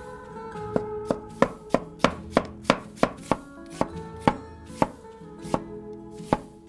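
Chinese cleaver slicing an onion on a wooden cutting board: the blade knocks on the board in a steady rhythm, about three strokes a second.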